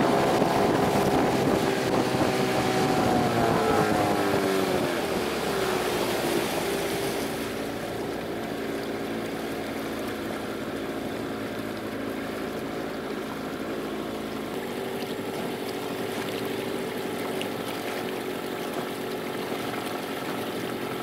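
Small boat's outboard motor running. Its pitch falls about three to six seconds in as it is throttled back, and after that it runs steadily at a lower speed. Wind and water rush over it for the first several seconds.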